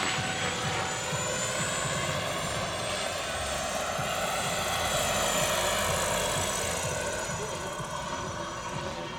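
Large scale RC model of a Lama helicopter in flight: the rapid chop of its rotor blades under a high whine from its drive, the pitch sliding as it flies past. It fades a little near the end.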